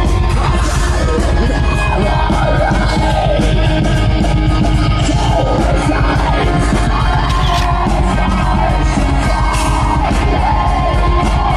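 Heavy metal music with harsh, shouted vocals over fast, dense drumming, playing loudly throughout.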